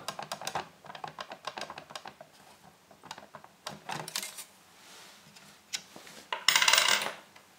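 Plastic top case of a ZX Spectrum with its rubber keyboard, pressed and rocked by hand, giving a run of light clicks and taps as it wobbles slightly on a coin fitted as a trial heatsink on the ULA chip. A louder scrape of about a second comes near the end.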